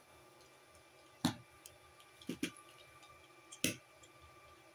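Beyblade spinning tops being handled after a battle, giving a few sharp plastic clicks and knocks about a second apart.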